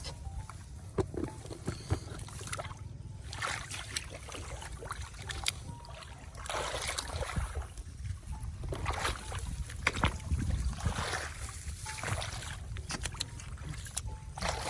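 Water splashing and sloshing in repeated bursts a second or two apart, over a steady low rumble.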